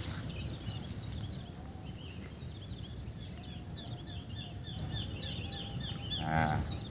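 Rural field ambience: a steady high insect drone and quick runs of small high chirps, over a low rumble of wind on the microphone, with a brief voice-like sound near the end.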